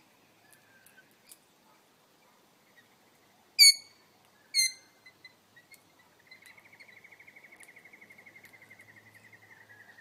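Two short, loud, shrill calls about a second apart from rainbow lorikeets. From about six seconds in, a long, fast, even trill runs on, its pitch sinking slightly.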